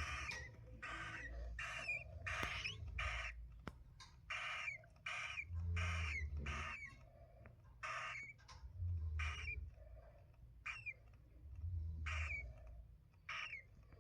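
Cockatiel chicks calling with a run of short, raspy, hissing cries, one or two a second, some ending in a brief warble. Low rumbles sound underneath.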